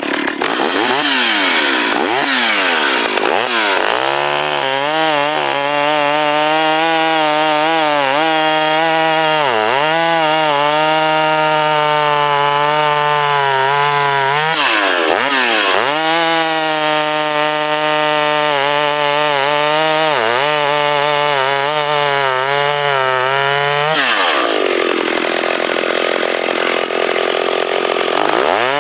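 Vintage Stihl 031 two-stroke chainsaw revving, then running at high speed through a log about 14 inches thick. Its engine note dips briefly a few times under load, drops lower for a few seconds near the end, and rises again.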